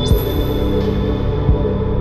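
Ambient background music: sustained synth-like tones over a soft low beat that falls about every second and a half, with a high held note coming in at the start.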